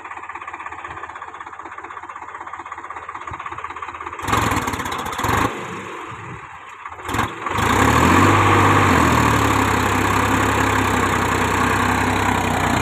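Solis Yanmar 5015's three-cylinder diesel engine running at low revs with a steady chug, then revving up and holding at high revs from about two-thirds of the way through as the tractor strains in deep mud.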